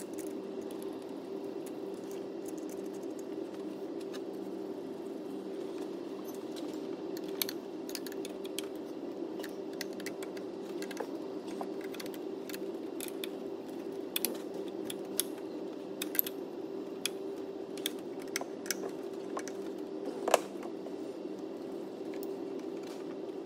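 Scattered light clicks and taps of connectors, fittings and a screwdriver being handled while refitting parts on top of a diesel engine, over a steady low hum. The clicks come irregularly from about a third of the way in, with one louder knock near the end.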